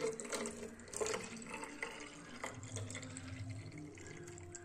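Liquid poured in a stream from a metal pan into the neck of a plastic bottle, faint pouring and splashing as the bottle fills.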